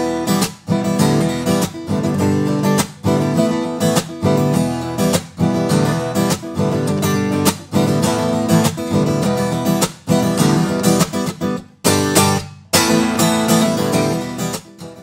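Acoustic guitar strumming chords in a steady rhythm: the original recording, with no equalisation applied.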